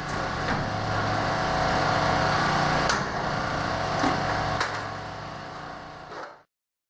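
A steady mechanical hum from a small engine or motor, with a couple of light clicks. It fades near the end and then cuts off abruptly.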